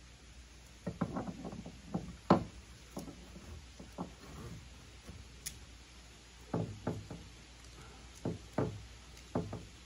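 Ratchet-strap hardware, its metal hook and ratchet buckle, knocking and clacking against a plastic kayak hull as the strap is threaded and hooked. The knocks are irregular and come in two clusters, the sharpest a little over two seconds in.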